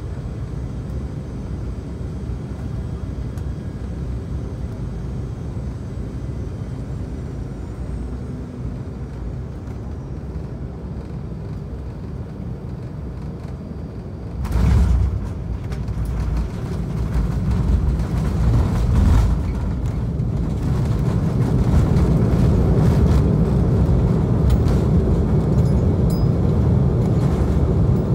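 Cabin noise of an Embraer E195 on final approach: a steady rumble from its twin turbofans and the airflow. About halfway through comes a jolt at touchdown, and then the rumble grows louder and stays loud as the jet rolls out and slows on the runway.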